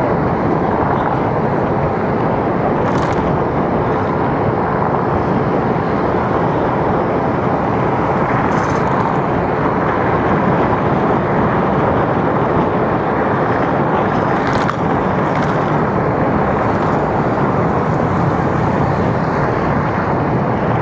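Steady rushing road and wind noise from a vehicle travelling along a road, with a few faint ticks.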